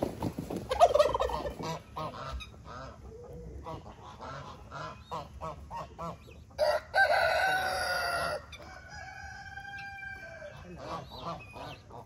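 Chickens clucking in short repeated calls, with a rooster crowing loudly once about seven seconds in. A fainter, steadier call follows it.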